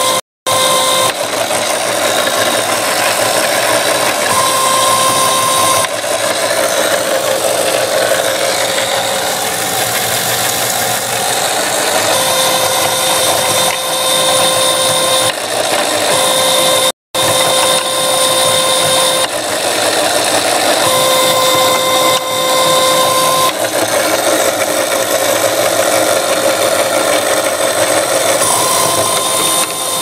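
Homemade motorized wire stripper running: a heater fan motor driving the stripping rollers through a #25 chain and sprockets, a loud steady mechanical whir with a whine that comes and goes. The sound drops out for a moment twice, once at the start and once about halfway.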